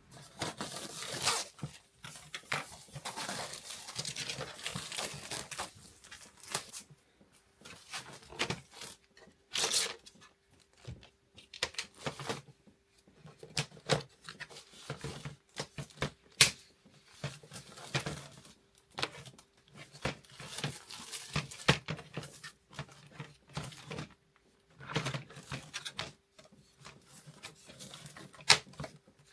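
Packaging being torn open and crinkled while a collapsible storage basket is unpacked and handled, with irregular sharp clicks and knocks among the rustling.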